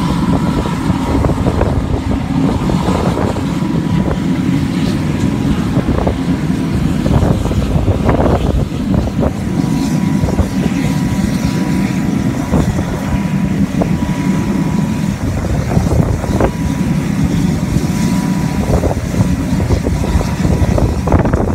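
Farm tractor's diesel engine running steadily as it pushes the jet back: a loud, rough, even rumble, with a thin steady whine above it.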